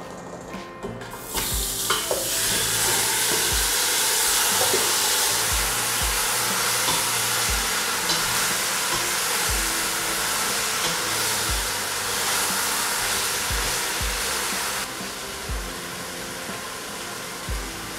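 Marinated chicken pieces dropped into hot oil in a stainless steel pot, sizzling hard as they sear, with a wooden spatula stirring them. The sizzle starts about a second in and settles back somewhat near the end.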